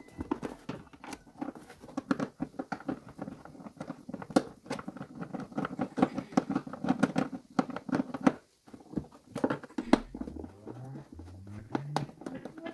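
Plastic seat of a children's ride-on toy car being pressed into place and screwed down with a hand screwdriver: a dense, irregular run of small clicks and rattles of plastic and metal, with a few low rising tones near the end.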